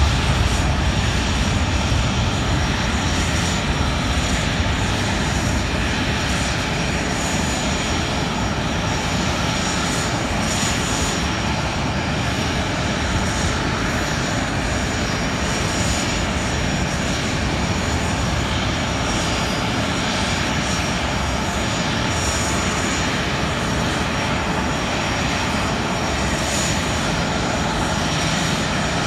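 Jet engines at taxi idle: a steady rush with a thin, high whine from a Boeing 737-700 airliner and a small business jet waiting nearby.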